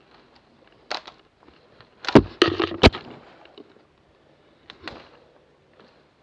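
Twigs and brush crackling and snapping: a dense burst of sharp cracks about two seconds in, with single cracks about a second in and near five seconds.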